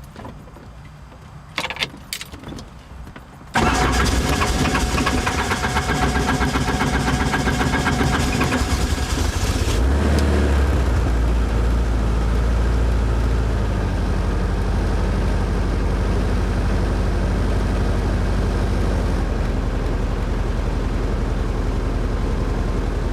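Helicopter engine being started on jump-cart power: a couple of clicks, then the engine suddenly catches about three and a half seconds in and runs loud, settling by the middle into a steady, deeper running tone.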